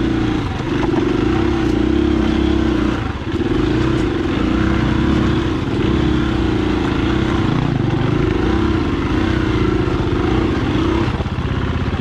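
Dual-sport motorcycle engine running under the rider, the throttle opening and closing as it works over rough ground, with brief dips about half a second and three seconds in. Near the end the engine note drops as the throttle closes.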